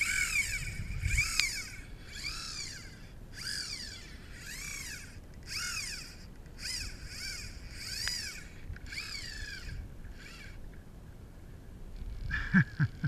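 A fly reel's clicker drag buzzing in repeated rising-and-falling bursts, about one every 0.7 s, as the spool turns with the line on a hooked bonefish. The buzzing stops about ten and a half seconds in, and a few knocks follow near the end.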